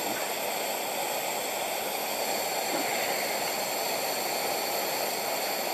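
Pressurized MSR Simmerlite liquid-fuel stove, converted to burn denatured alcohol through a lathe-turned jet, running at full flame with a steady, even rushing hiss.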